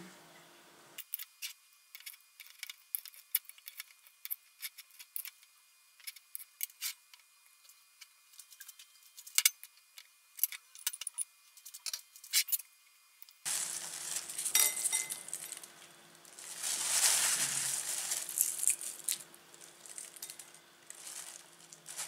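A knife cutting soft cooked potato on a glass plate, the blade clicking and tapping against the glass in quick irregular strokes. About two-thirds of the way through, the clicks give way to denser rustling and scraping from handling the food and dishes.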